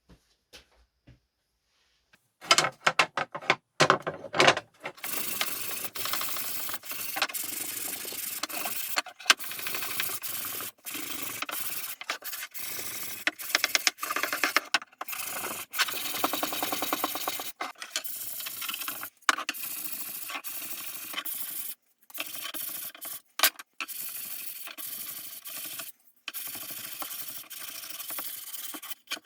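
Abrasive rubbing by hand during furniture restoration, in stretches of a few seconds broken by short pauses, starting a couple of seconds in.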